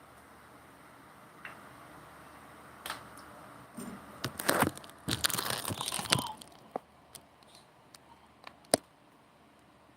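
Crinkling and rustling for about two and a half seconds in the middle, then a few separate sharp clicks, the last the sharpest.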